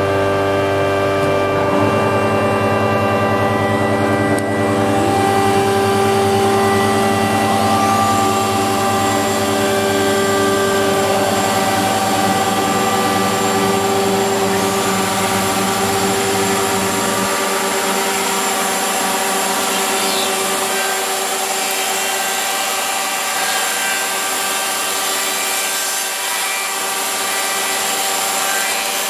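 Weinig four-sided planer's cutterhead spindle motors being started one after another, each new whine sweeping up to speed during the first several seconds. They then run idle together with a loud, steady, many-toned whine. A low hum drops out a little past halfway.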